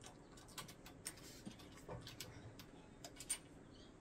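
Faint, scattered small clicks and taps as the notched, screw-on power-cord connector of an EENOUR double tumbler heat press is lined up and fitted by hand.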